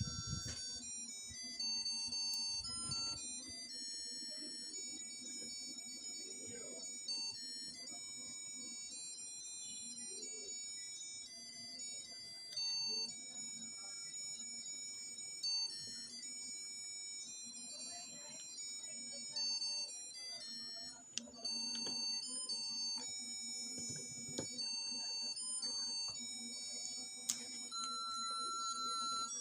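Tinny electronic melody of clean beeping notes stepping from pitch to pitch, like a ringtone or ice-cream-van tune, over a faint low hum.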